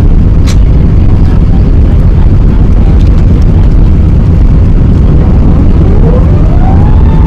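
Loud, steady roar of an Airbus A380's engines and airflow heard from inside the passenger cabin. A whine rises in pitch about three-quarters of the way through, then holds steady.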